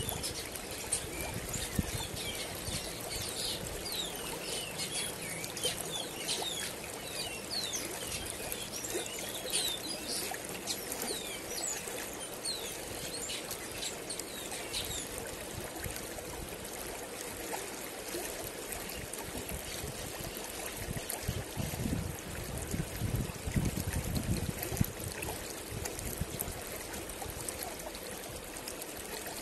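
A shallow river running over stones, a steady rush of water, with small birds chirping over it, most often in the first half. A low rumble comes and goes for a few seconds about two-thirds of the way through.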